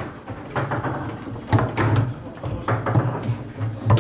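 Table football (foosball) being played: an irregular run of sharp knocks and clacks, about seven in four seconds, from the ball being struck by the figures and hitting the table.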